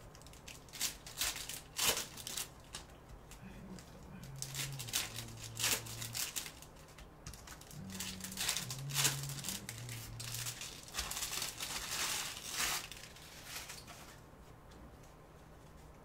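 Trading card pack wrappers being torn open and crinkled by hand, with cards handled in between: a run of sharp crackles and rips that fades out near the end.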